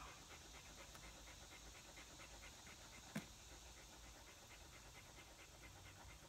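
Cocker spaniel panting faintly in a fast, even rhythm, with a single faint click about three seconds in.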